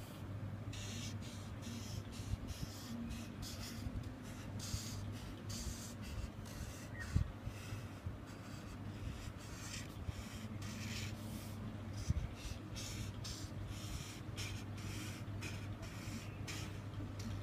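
Red felt-tip marker drawing on paper: runs of short scratchy strokes as a zigzag outline is drawn, with a couple of light knocks, over a steady low hum.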